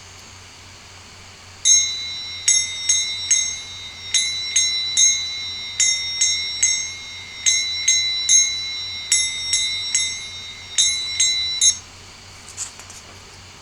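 Ringing strikes of a small metal bell-like percussion instrument, played in a steady rhythm of three strikes at a time. It starts about two seconds in and cuts off suddenly near the end. This is likely an instrument sound sample.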